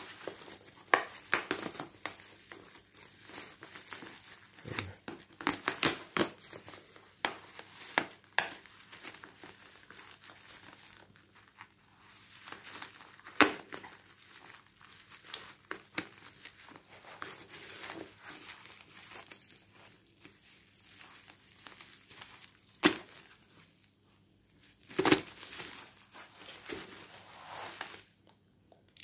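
Black bubble-wrap parcel packaging being torn open and crumpled by hand: irregular crinkling and crackling of plastic throughout, with a few louder sharp cracks.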